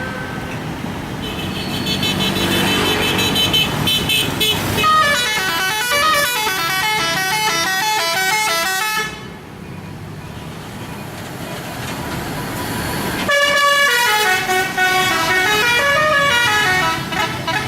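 Bus telolet horn, a multi-trumpet air horn, playing a quick tune of stepping high and low tones twice: from about five seconds in to nine, and again from about thirteen seconds in to near the end. A steady horn tone comes before the first tune, and vehicle noise fills the gap between the two.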